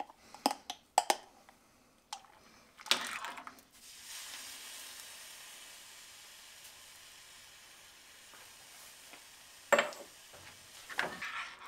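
Kitchen handling sounds: a few light clicks and a rustle, then a steady hiss that slowly fades over about six seconds, cut off by a sharp clack.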